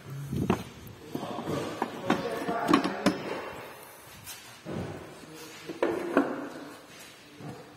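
Irregular knocks, clicks and clatter, like parts or tools being handled, busiest about two to three seconds in and again around six seconds in.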